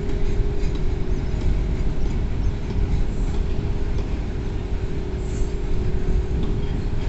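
Covered goods wagons of a freight train rolling past, a steady low rumble of steel wheels on the rails with a faint steady hum and a few light clicks.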